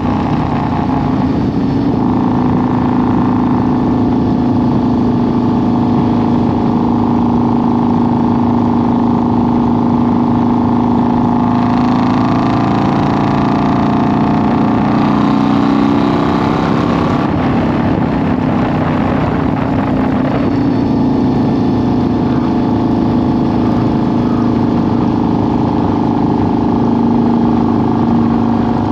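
2002 Harley-Davidson V-Rod's 1131 cc water-cooled V-twin running steadily under way. Its note shifts about halfway through, then settles back to an even cruise.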